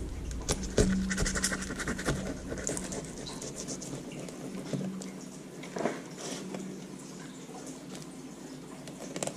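Fillet knife slicing through a crappie's scaled skin and flesh along the backbone on a plastic cutting board: a dense run of small scratches and crackles for the first few seconds, then only scattered ones.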